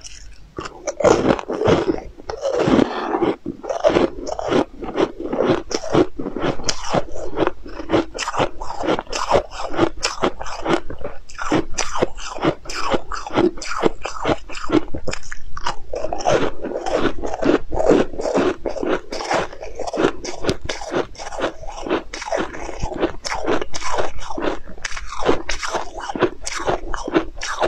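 A person biting and chewing crisp food close to the microphone: loud, rapid crunching, several crackles a second, continuing without a break.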